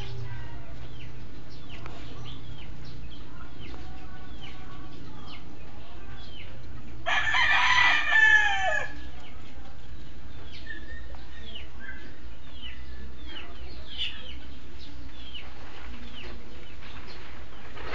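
Animal calls: short high chirps repeating about once a second, and one loud drawn-out call about two seconds long near the middle.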